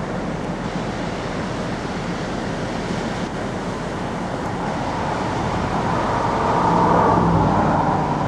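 Surf breaking and wind buffeting the microphone, a steady rushing noise. About six seconds in, a louder hum with a steady pitch swells up over it and eases off near the end.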